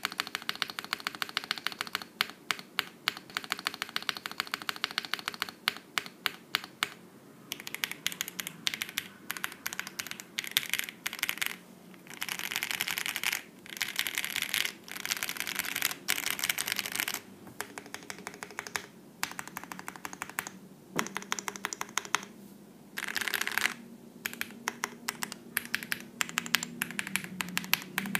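Typing on a QK65 aluminium mechanical keyboard with lubed Jwick Black linear switches and lubed Owlab stabilizers: quick runs of clacky keystrokes with short pauses between bursts, and no hollowness.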